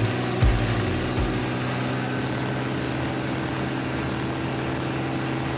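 Combine harvester running steadily while harvesting soybeans, with a few low knocks in the first second and a half; the sound cuts off suddenly at the end.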